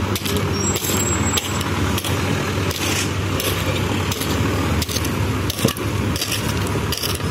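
An engine runs steadily underneath irregular metallic scrapes and clinks from a hand hoe digging into gravel and stones.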